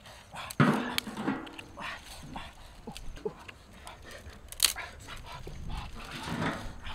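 Dry sticks snapping with sharp cracks and brushwood rustling as firewood is broken and fed to a small open fire. A short whine-like call sounds about half a second in.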